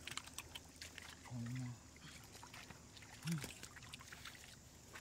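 Faint sloshing and trickling water with scattered small splashes and clicks, as of someone moving in shallow water.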